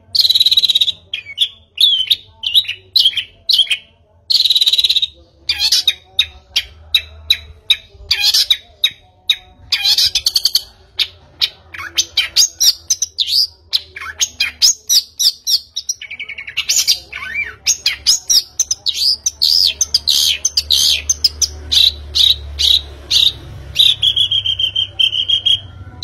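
A bird chirping and twittering loudly in fast runs of short high notes, with a few longer held whistles between them.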